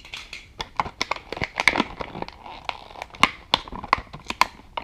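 Hands handling small plastic parts and wiring, with irregular crinkling and many quick sharp clicks.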